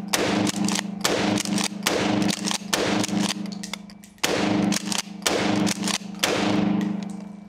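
Mossberg 590S 12-gauge pump shotgun firing a quick string of shots with the pump racked between them, mixing 2¾-inch and 1¾-inch mini shells of No. 8 birdshot. Each shot rings on and echoes in the concrete-block indoor range, with a brief lull about four seconds in.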